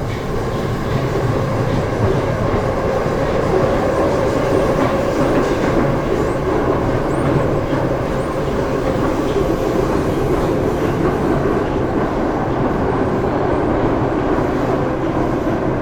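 Moscow Metro train running at speed, with the steady noise of wheels on the rails.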